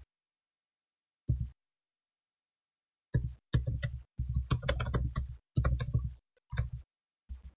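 Typing on a computer keyboard: a single click a little over a second in, then a quick run of keystrokes from about three seconds in.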